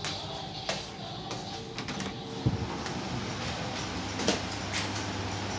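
Footsteps and phone handling noise: a few irregular light knocks and clicks over a faint steady low hum.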